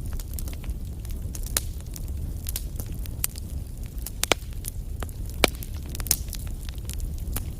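Fire crackling: irregular sharp pops and snaps over a steady low rumble, with the loudest pop about five and a half seconds in.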